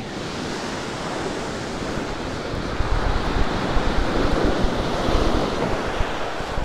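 Sea surf washing on a shingle beach, a steady rushing hiss, with wind buffeting the microphone in low rumbles; it grows louder about three seconds in.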